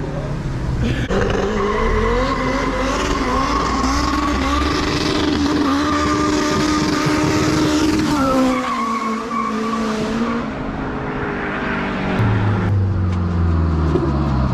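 Turbocharged Toyota 2ZZ-GE four-cylinder engine accelerating hard, its pitch climbing for several seconds, then dropping suddenly as the throttle comes off and the car goes by. Near the end, music comes in.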